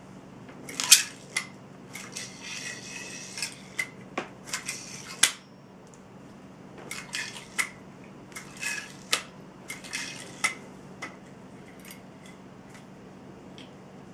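A yo-yo being thrown and caught: irregular sharp clicks and short whirring, rasping bursts of the spinning yo-yo on its string, thinning out in the last few seconds.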